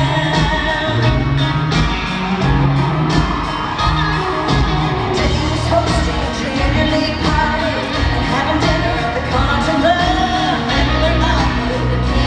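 Live country-pop concert: a woman singing lead over a full band with a steady drum beat and heavy bass, heard from the audience in a large hall.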